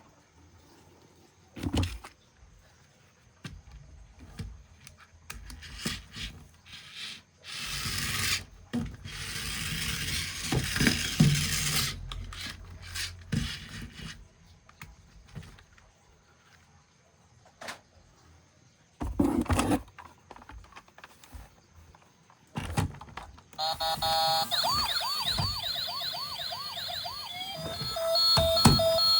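Knocks and rustling from handling toys and packaging. About 23 seconds in, a toy emergency vehicle's electronic siren switches on: a fast repeating up-and-down wail that changes near the end to a pulsing beep.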